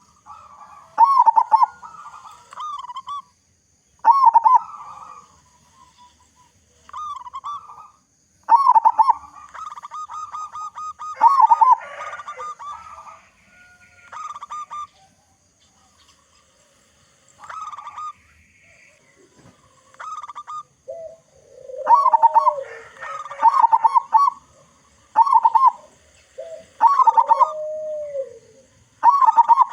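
Zebra dove (perkutut) cooing: short, rolling, trilled phrases repeated with pauses between them. In the last third a lower-pitched, arching coo comes in between the phrases.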